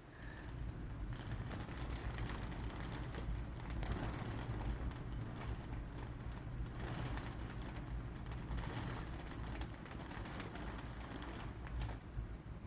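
Storm wind and rain: a steady low rumble under a fast, irregular ticking of raindrops striking a nearby surface.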